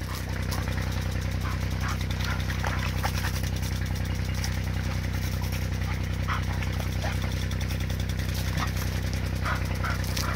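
A small engine runs steadily with a low, even hum, with the water spray and fast ticking of an impact sprinkler over it.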